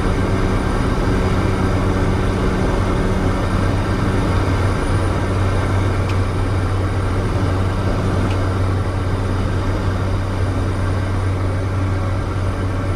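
Cessna 208 Caravan's PT6A turboprop engine and propeller heard from inside the aircraft, a steady, even drone.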